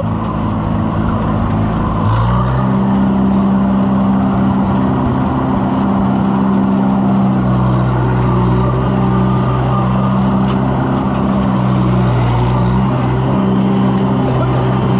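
Tractor engine running steadily under throttle; its pitch steps up slightly about two seconds in and then holds even.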